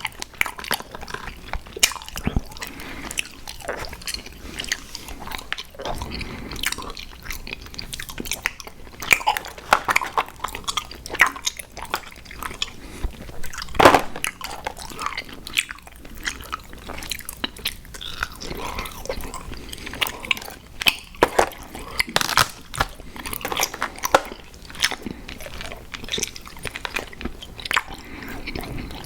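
Close-up mouth sounds of chewing and biting sour gummy worms cereal: wet, sticky chewing with irregular crunches and clicks throughout.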